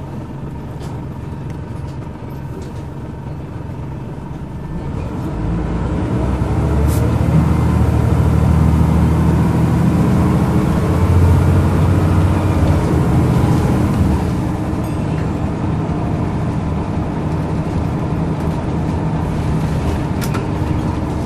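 Diesel engine of a single-deck bus heard from inside the passenger saloon: running quietly at first, then from about five seconds in it pulls away under load, its low drone growing louder for several seconds before easing back to a steadier cruise.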